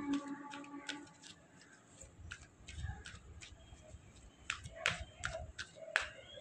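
A deck of oracle cards being shuffled by hand: irregular soft clicks and card snaps, coming thicker in the last couple of seconds. A faint held tone dies away about a second in.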